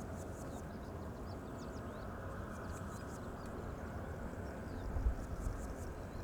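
Outdoor field ambience: a steady low rush with faint, scattered bird chirps, and a brief low bump about five seconds in.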